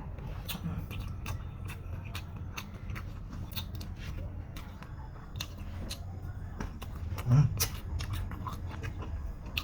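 Chewing and biting into crispy fried chicken, with frequent irregular sharp crunches over a steady low hum. There is a short louder sound about seven seconds in.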